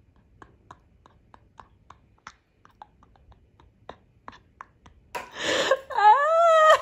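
Small clicks and crackles as a champagne bottle's foil and cork are worked loose by hand. About five seconds in, a short hiss as the cork comes out with a weak pop. It is followed by a drawn-out rising-and-falling vocal exclamation.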